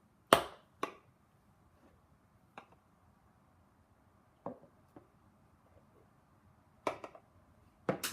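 Hands handling small objects: a handful of scattered sharp taps and clicks, the loudest one about half a second in and a pair near the end, with quiet in between.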